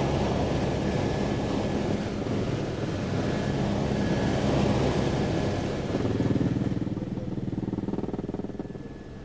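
Helicopter heard from inside the cabin: steady engine and rotor noise with a thin high whine over a rush of air. About six seconds in, a fast, even rotor beat comes through, and the noise eases toward the end.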